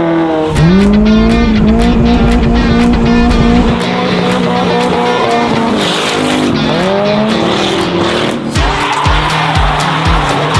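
Drift car engines revving hard, rising and then held at high revs, with tyres squealing and skidding as the cars slide. An even beat of background music comes in near the end.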